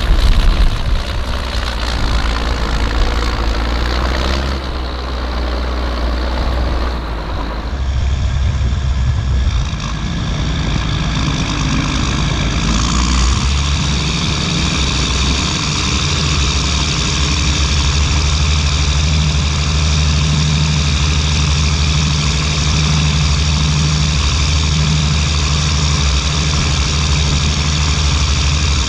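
Ford TW tractor's diesel engine running steadily under load while pulling a plough, with a change in its tone about eight seconds in.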